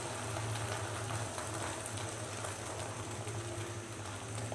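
Beaten egg frying in oil in a nonstick pan: a soft, steady sizzle with faint crackles, over a low steady hum.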